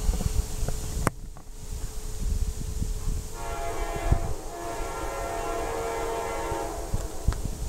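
Air horn of an approaching diesel freight locomotive, heard from down the line, sounding one long chord of several notes for about three and a half seconds, starting about three seconds in.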